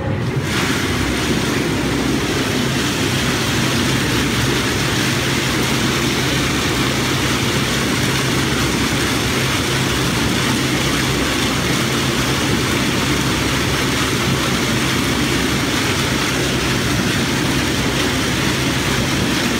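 Drum-type peanut roasting machine running: a steady motor hum under the continuous rattle and hiss of roasted in-shell peanuts tumbling in the rotating metal drum and pouring out of its front opening into a sack. The noise starts suddenly at the outset and then holds steady.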